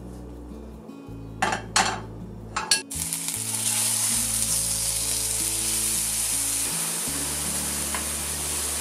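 Marinated beef short ribs (LA galbi) frying in hot oil in a stainless steel pan: a few sharp crackles about one and a half to three seconds in, then a loud, steady sizzle. Soft acoustic background music underneath.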